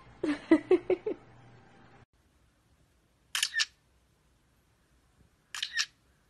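Budgerigar imitating a camera shutter: two crisp double clicks about two seconds apart. Before them, near the start, comes a rapid string of about six short pitched vocal notes.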